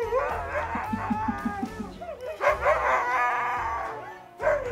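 Husky 'talking': long, wavering howl-like vocalizations in two drawn-out stretches, with a short break about two seconds in.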